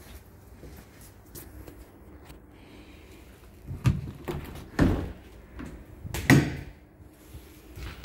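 Toilet cubicle door with a metal slide bolt being handled and pushed open: three knocks and clunks about a second apart in the second half.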